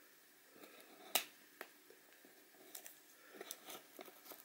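A few sharp clicks and light taps, the sharpest about a second in, from handling a cardboard shipping box.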